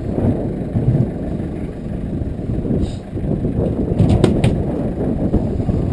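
Steady low rumble of wind and boat noise on an open fishing boat's deck, with a few sharp clicks about four seconds in.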